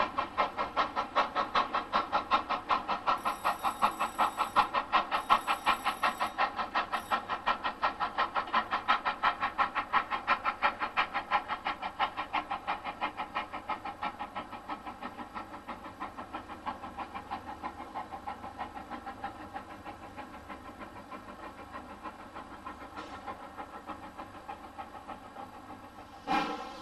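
Steam locomotive working hard as it hauls its train away, its chimney exhaust beating in a fast, even rhythm that grows steadily fainter as the train recedes.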